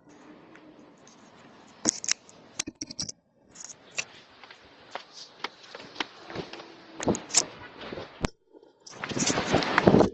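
Close handling noise: scattered sharp clicks, scrapes and knocks, a cluster of them about two seconds in, then a louder rustling scrape near the end.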